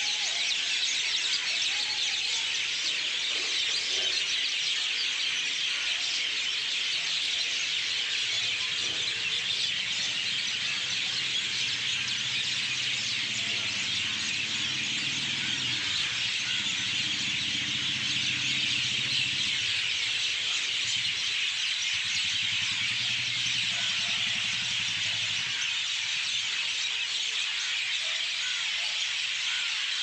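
A dense, unbroken chorus of many birds chirping at once, high-pitched and steady.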